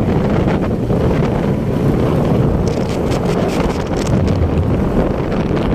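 Heavy wind buffeting the microphone on a moving ATV, with the quad bike's engine running steadily underneath.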